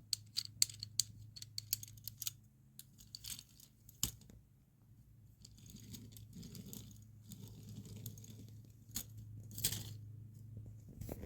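LEGO hand cart running on plastic track: a quick run of light clicks for about two seconds, then scattered clicks and a louder knock about four seconds in, over a steady low hum.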